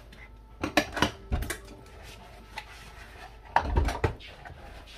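Bowls and dishes clattering against one another and the stainless steel sink as they are scrubbed and rinsed by hand, in two bursts of knocks: about a second in and again at about four seconds.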